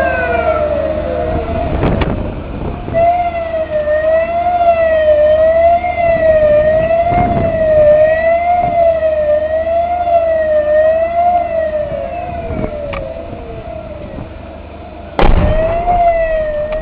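Base alarm siren giving the rocket-attack warning: one warbling tone, its pitch wavering quickly up and down. A few knocks come through, and a sudden loud bang about fifteen seconds in.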